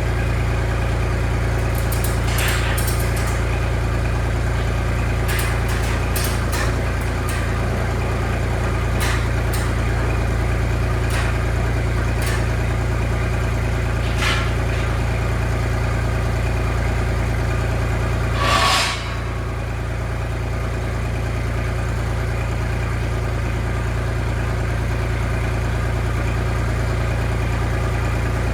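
An engine idling steadily, with scattered sharp clicks and taps over the first half and one short, louder rasping burst about 19 seconds in.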